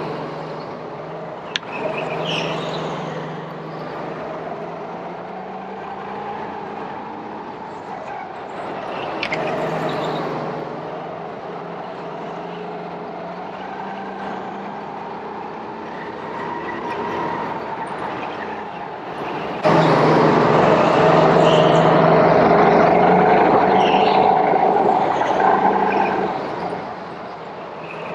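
Go-kart engine running, its pitch rising and falling. About twenty seconds in it suddenly gets louder and stays loud for several seconds.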